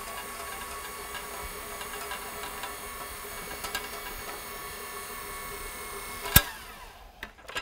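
Rotary floor buffer fitted with a 100-grit sanding screen running steadily as it scuff-sands cured epoxy, a motor hum with a held whine. About six seconds in there is one sharp click, and the sound then drops away.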